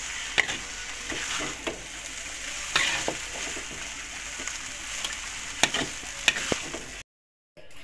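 Spatula scraping and clinking against a wok as noodles are tossed and stir-fried, over a steady sizzle. The sound cuts off abruptly about seven seconds in.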